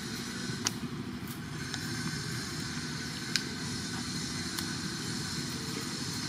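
Steady outdoor background rumble and hiss with a few short, sharp clicks scattered through it.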